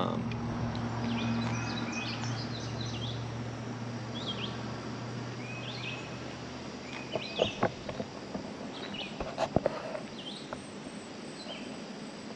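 Outdoor ambience with small birds chirping over and over in short repeated calls, over a steady low hum that fades out partway through. A few sharp clicks come in the second half.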